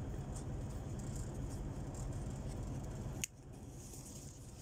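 Paper inserts and a cardboard phone box being handled, with faint light rustles and taps over a steady low hum. About three seconds in there is a sharp click and the hum drops away, leaving it quieter.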